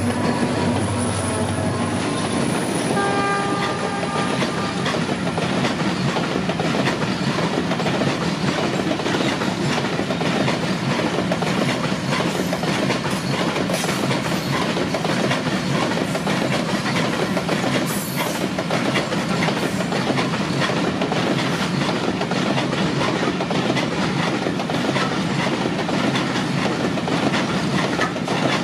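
A low diesel engine hum from the passing locomotives for the first two seconds or so, then a long coal train's open freight wagons rolling past close by: a steady rumble with wheels clattering over the rails.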